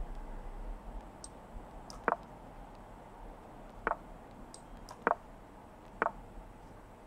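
Sharp clicks of moves being played in a computer chess game, about four louder ones a second or so apart with fainter, higher ticks between them: mouse clicks and the game's piece-placement sounds.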